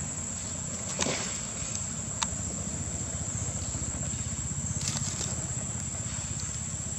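Outdoor ambience: a steady, high-pitched insect drone over a constant low rumble. A few light clicks and rustles come about a second in, just after two seconds, and around five seconds.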